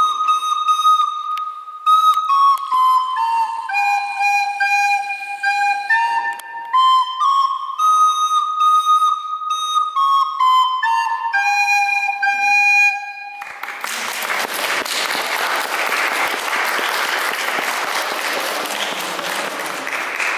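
A recorder plays a simple melody of clear, held notes moving up and down in steps, ending about thirteen seconds in. Audience applause follows until the end.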